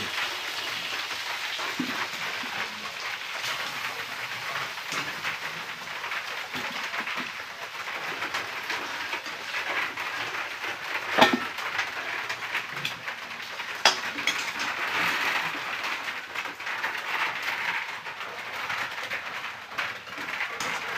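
Thick chicken feet masala sizzling and crackling in a hot metal kadai while a metal spatula stirs and scrapes through it. Two sharp clanks of the spatula against the pan stand out, about eleven and fourteen seconds in.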